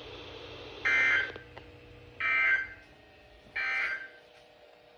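NOAA Weather Radio EAS end-of-message data bursts: three half-second bursts of digital data tones with short pauses between them, which mark the end of the alert broadcast.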